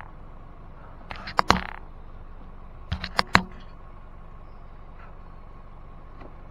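Vehicle engine running with a steady low rumble, while a few sharp clunks and knocks come in two quick clusters, about a second in and again about three seconds in.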